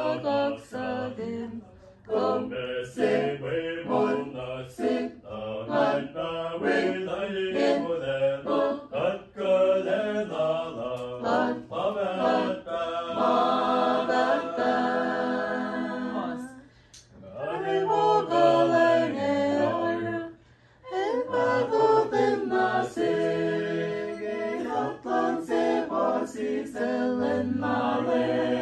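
Unaccompanied singing with long held notes, at times in more than one voice line, pausing briefly twice about two-thirds of the way through.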